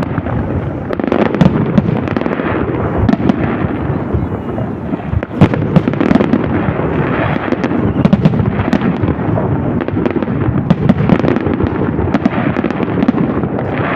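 Fireworks salute: a dense, continuous barrage of bursts and crackles, with many sharp reports overlapping throughout.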